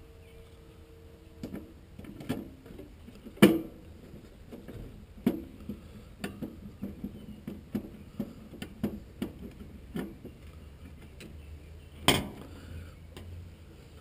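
Screwdriver and circuit board being handled against the sheet-metal control compartment of a package HVAC unit while the new blower control board is fastened in place: a run of small clicks and taps, with two sharp knocks, one about three seconds in and one near the end.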